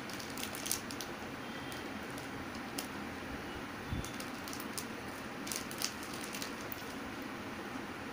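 Crinkling and crackling of a small plastic snack packet handled by a toddler's fingers, in scattered bursts of clicks, with a soft thump about four seconds in over a steady background hiss.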